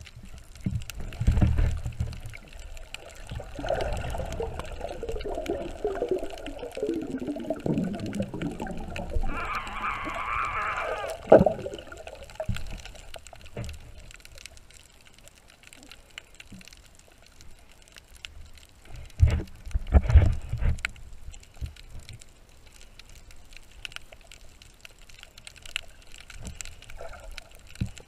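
Muffled water sloshing and gurgling heard underwater through a camera housing, with low thumps from water movement against the housing a second or two in and again about two-thirds of the way through. A whine falls in pitch between about four and eight seconds in.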